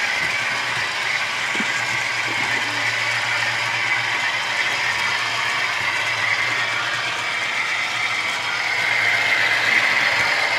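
Model train running along the layout's track, a steady mechanical whir and clatter of the locomotive's drive and the wheels on the rails.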